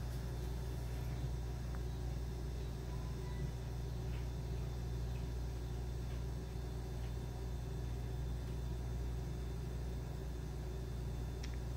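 Steady low background hum at an even level, with a few faint small clicks.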